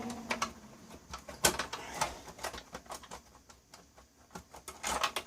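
Scattered clicks and light rattles of plug connectors and a wiring loom being worked loose from an electronic test set's chassis, with a sharper click about one and a half seconds in and a cluster of clicks near the end.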